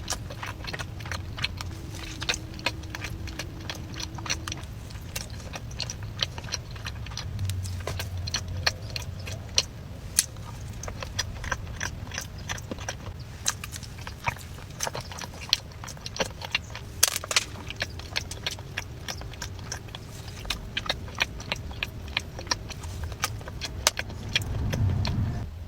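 Fork and plastic cake container clicking and clinking again and again while cake is eaten, over a steady low rumble.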